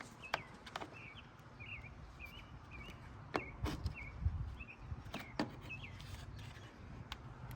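A small bird chirping in a run of short, quick twittering notes, with a few sharp clicks and light knocks mixed in.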